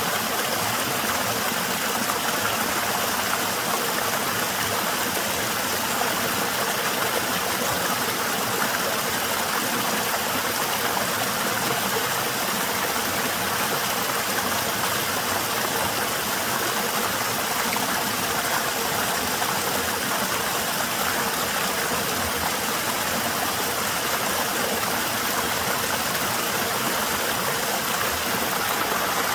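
Small waterfall with a somewhat low flow, water falling and splashing in a steady, gentle rush.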